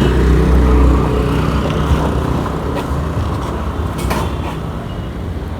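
A motor vehicle engine running with a steady low hum that slowly fades, with a few light clicks.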